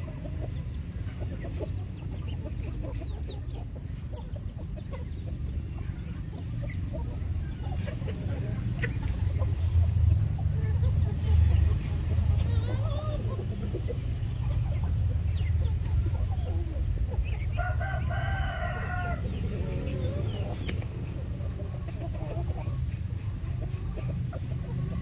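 A flock of chickens clucking while feeding, with a longer pitched call, likely a rooster crowing, about eighteen seconds in. High, quick chirps come in runs throughout, over a steady low rumble that swells around ten to twelve seconds in.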